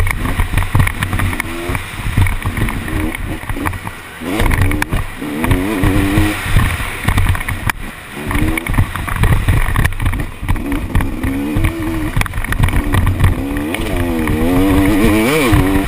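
KTM SX 250 two-stroke single-cylinder motocross engine revving up and down hard as the bike is ridden around a dirt track, with wind rumble on the helmet-mounted microphone.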